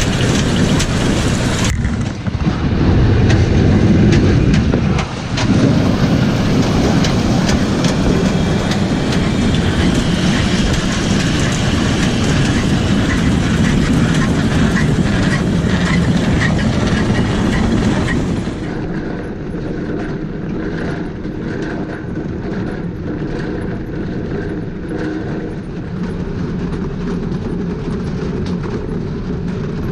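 Better Built potato seed cutter running, with its sizers and conveyors rattling and seed potatoes tumbling and knocking through the machine in a steady clatter of many small knocks. The sound turns quieter and duller about two-thirds of the way through.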